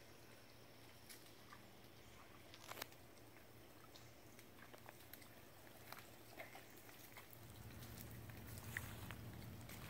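Near silence: faint woodland ambience with scattered soft ticks and rustles, and a low hum that grows a little louder about seven seconds in.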